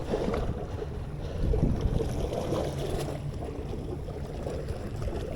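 Wind rumbling on the microphone, a steady low noise.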